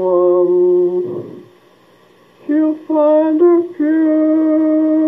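A man singing a country melody without words, unaccompanied, in long held notes: one phrase about a second long, a pause, then more phrases from about two and a half seconds in, ending near the end.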